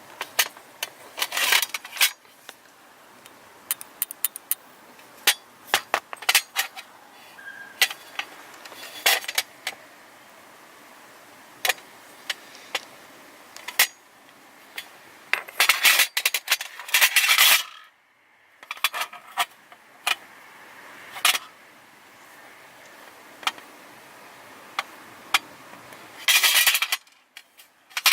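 Hand tools and small metal parts clinking and scraping while an engine's AAC idle-air-control valve is taken apart: a string of sharp separate clicks, with two longer bursts of scraping and rattling, one past the middle and one near the end.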